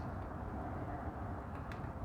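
Steady low rumbling background noise, with a few light clicks in the last half second.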